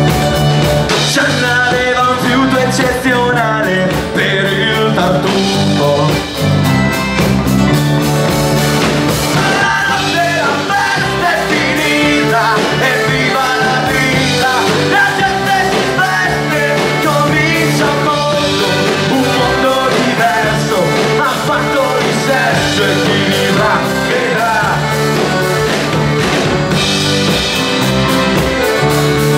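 Live folk-rock band playing an instrumental passage: acoustic guitars, drum kit and accordion, with a wavering lead melody over a steady bass line.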